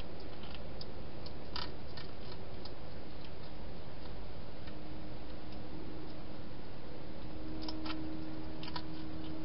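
Hedgehog eating inside a plastic feeding box: scattered sharp clicks and crunches of chewing, in clusters, over a steady hiss.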